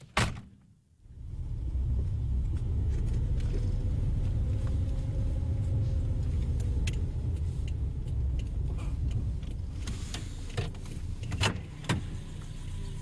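A sharp knock at the very start, then the steady low rumble of a car's engine and road noise heard inside the cabin while driving, with a few light clicks and rattles near the end.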